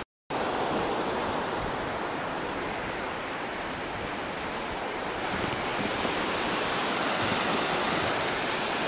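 Surf breaking and washing on a beach, a steady rushing wash of waves, with some wind on the microphone.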